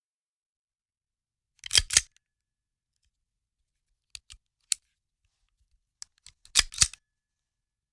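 Handgun handling sound effect: the metal action is worked in sharp clacks. A loud pair comes about two seconds in, three lighter clicks follow a little past the middle, and another loud pair comes near the end.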